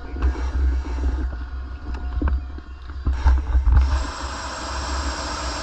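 Diving helmet with a low rumble and a few knocks, then a steady hiss of air about four seconds in. This fits the diver opening his bailout bottle after main air has been secured.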